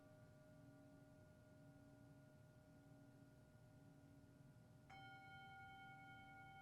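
Tibetan singing bowls ringing faintly: several sustained tones hang in the air, and about five seconds in another bowl is struck and rings on clearly.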